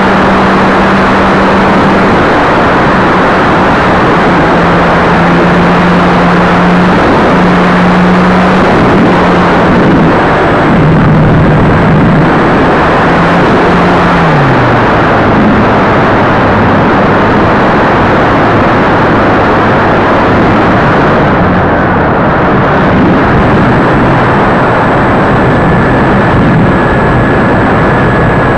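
Electric motor and propeller of a ParkZone F4U Corsair RC plane in flight, heard from its onboard camera: a steady low hum under loud wind rush on the microphone. The hum's pitch steps up and down, then drops lower about halfway through as the motor slows.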